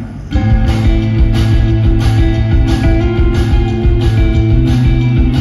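Live rock band playing loud, with electric guitars, bass and keyboard. After a brief drop, the full band comes in about a third of a second in and holds a steady driving beat of about two strokes a second.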